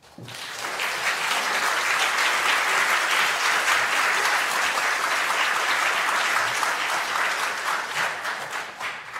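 Audience applauding, with many people clapping at once; it swells over the first second, holds steady, and dies away near the end, the ovation that closes a keynote talk.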